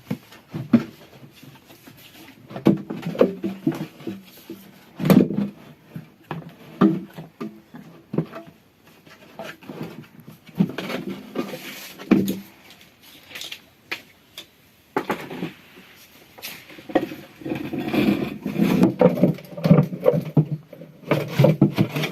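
Irregular knocking and clattering of tools and metal parts as a washing machine is taken apart. A loud knock comes about five seconds in, and the clatter is densest near the end.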